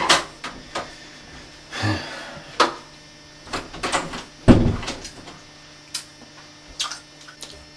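A door being handled: scattered clicks and knocks, with a heavier thump about halfway through, over a faint steady hum.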